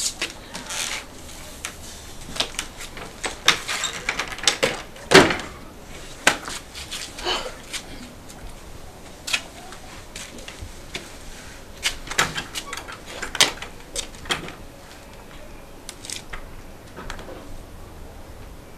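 Scattered sharp clicks and knocks at irregular intervals, of varying loudness, the strongest about five seconds in.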